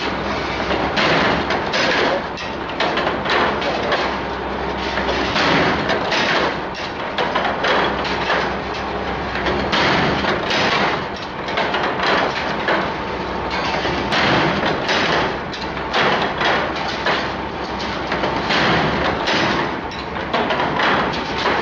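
Milk-can handle wire-forming machine running: a steady mechanical din with repeated knocks from its cam-driven forming tools, about two a second and unevenly spaced.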